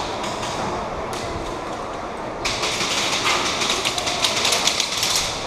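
Airsoft guns firing: a steady background rumble, then from about two and a half seconds in a fast, irregular run of sharp clicking and rattling that lasts about three seconds.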